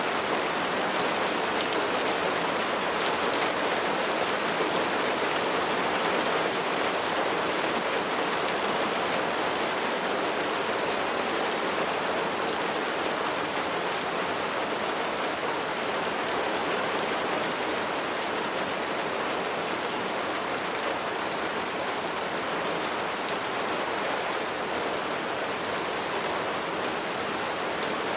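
Steady rain falling on surfaces, a dense even hiss with scattered sharp drop ticks.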